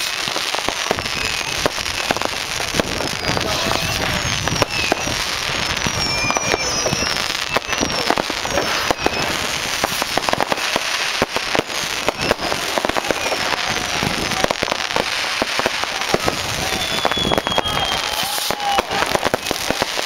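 Many fireworks and firecrackers going off in a dense, continuous crackle of bangs, with short high whistles that fall in pitch.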